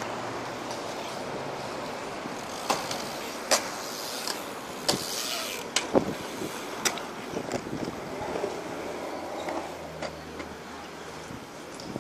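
BMX bikes riding on a concrete skatepark: a steady rolling noise, broken by irregular sharp clacks and knocks of tyres and frames on the concrete and a brief scraping skid about five seconds in.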